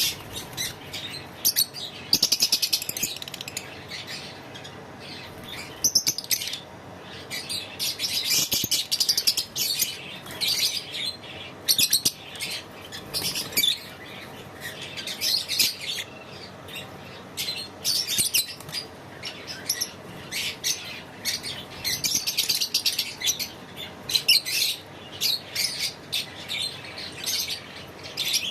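A flock of lovebirds chattering, with many high, shrill chirps coming in repeated clusters.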